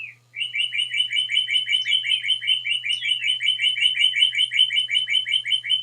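A decorative birdhouse playing back a recorded bird song: a short falling whistle, then a fast, even trill of about five or six notes a second, with two falling whistles laid over it partway through.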